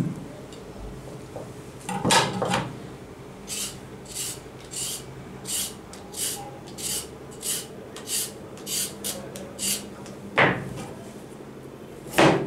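A carrot being peeled by hand: about eleven short, even scraping strokes, under two a second. Two knife chops follow near the end, striking a plastic cutting board. A single knock comes about two seconds in.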